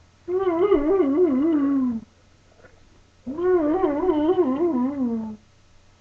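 A dog "talking": two long warbling vocal calls, each about two seconds, the pitch wavering up and down and sliding down at the end, with a pause between them.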